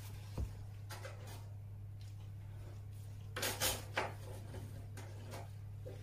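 Dental stone cast handled and set down on a hard tabletop: a soft thump about half a second in, then a short cluster of sharp knocks and clicks about three and a half seconds in, over a steady low hum.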